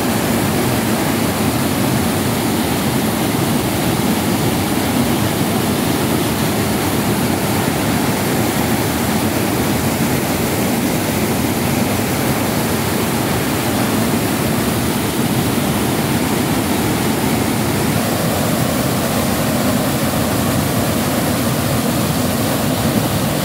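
Floodwater pouring fast over a rocky reservoir spillway in full flood: a steady, loud rush of churning water.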